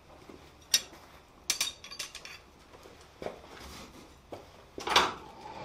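Blacksmith's steel tongs and a small forged steel drift clinking as they are lifted off the anvil: a few scattered light metal clicks and knocks.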